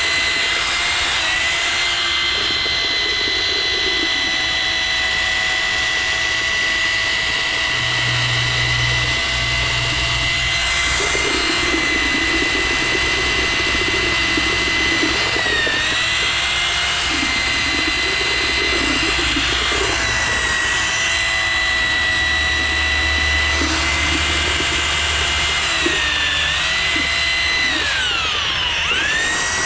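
Electric drill with a paddle mixer churning concrete in a bucket: a steady high motor whine that sags briefly twice under load, then winds down near the end and spins back up. The concrete has just had water reducer added and is loosening into a more fluid mix.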